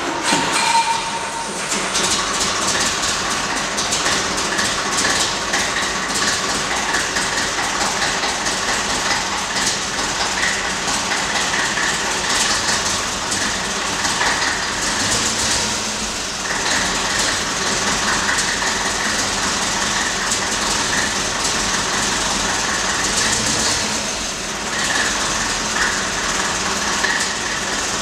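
IFA S4000 truck's four-cylinder diesel engine running steadily and loudly, having just caught on a cold start.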